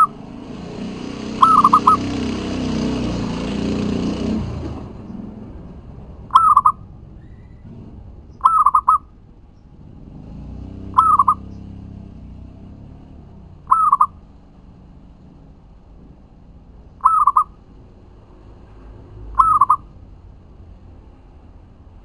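Zebra dove (perkutut) cooing: seven short trilled coos, repeated every two to three seconds. A rushing noise swells and fades under the first few calls.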